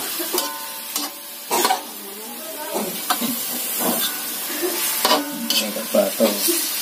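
Metal spatula stirring and scraping chicken pieces around a metal wok, with strokes against the pan every second or so over a steady sizzle of the meat starting to fry.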